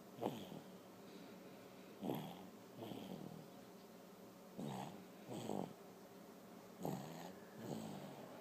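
Snoring: a breath in and a breath out, each carrying a sliding pitch, repeating about every two and a half seconds.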